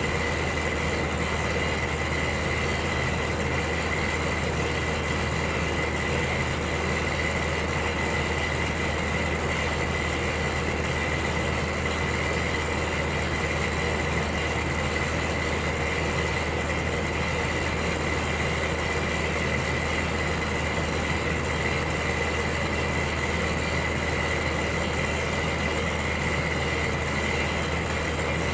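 Electric heater running steadily: an even, unchanging rush of noise over a low hum, with a thin high whine.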